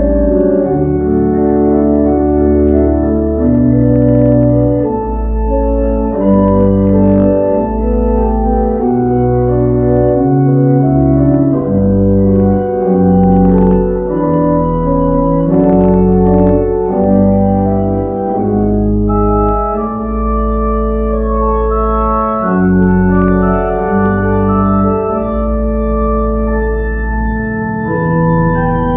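Organ playing slow, sustained chords that change every second or so over long held bass notes.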